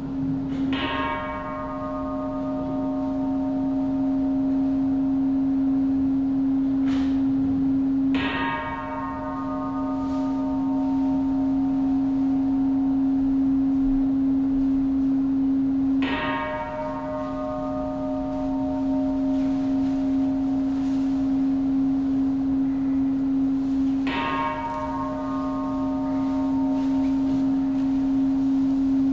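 A bell struck four times, about eight seconds apart, each stroke ringing with many overtones and fading away, over a steady low drone.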